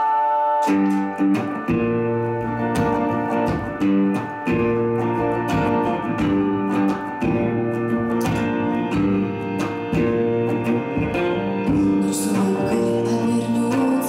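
Instrumental music: an electric guitar playing a repeating figure over a frame drum struck with a beater in a steady beat of about two strokes a second. A held ringing chord breaks off about a second in as the beat starts.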